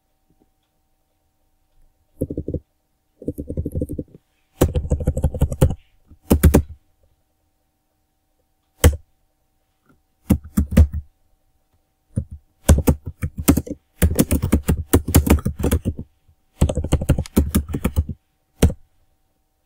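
Typing on a computer keyboard: several quick bursts of keystrokes separated by pauses, with a single key tap near the end.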